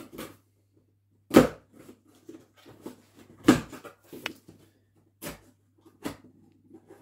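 A cardboard parcel being opened by hand: three sharp knocks with rustling and small clicks of cardboard and packing between them.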